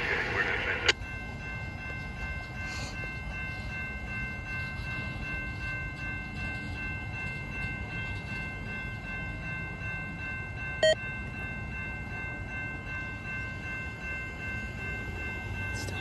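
Railroad crossing warning bell ringing steadily over the low rumble of a freight train rolling away from the crossing. A louder sound in the first second cuts off abruptly, and there is a single sharp click about eleven seconds in.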